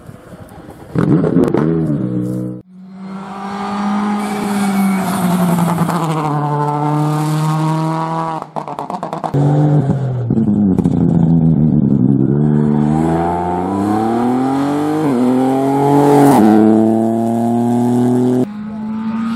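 Rally car engines, among them a Ford Fiesta rally car's, accelerating hard through the gears, the pitch climbing and dropping back at each gear change. The sound cuts abruptly between several separate passes.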